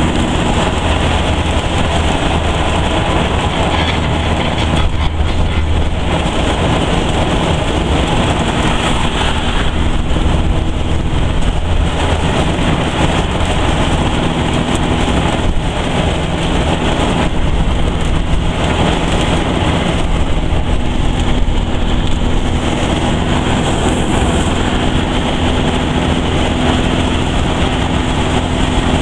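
Dune buggy on the move: its engine runs steadily under a continuous rush of road and wind noise.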